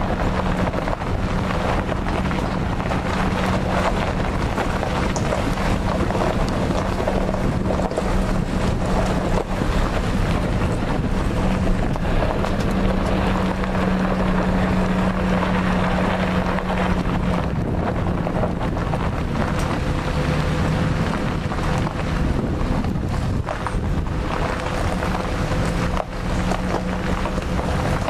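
Vehicle engine humming steadily at low speed while driving along a dirt and gravel track, with wind rushing over the microphone.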